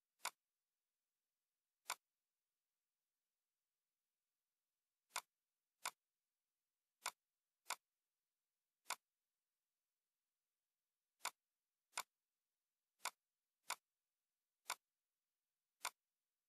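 Computer mouse clicks: thirteen short, sharp, identical clicks at irregular intervals, about half a second to three seconds apart.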